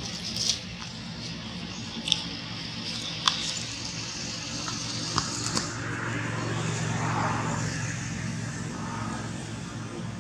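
A motor vehicle's engine running steadily, growing louder about six seconds in and easing off again, with a few sharp clicks.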